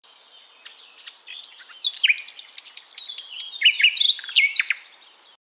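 A small bird chirping and twittering in a fast, varied run of short high notes and whistled slides. It starts faint, grows loud after about two seconds, then tails off and stops just before the end.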